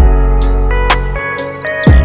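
Background music with a steady beat: a drum hit about every half second over a deep bass and sustained melodic notes.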